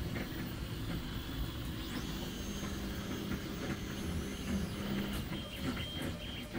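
DeltaMaker delta 3D printer running mid-print: a steady fan hum with motor whines that shift in pitch and come and go.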